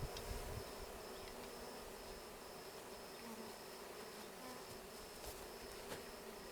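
Many honeybees buzzing in a steady hum around a newly installed nuc hive, with a couple of faint clicks near the end.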